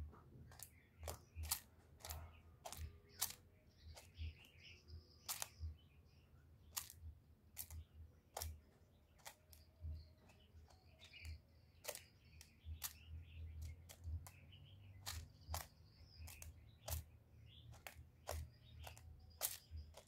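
Caged spotted dove preening right at the microphone: irregular sharp clicks and ticks, about one or two a second, with soft low thumps.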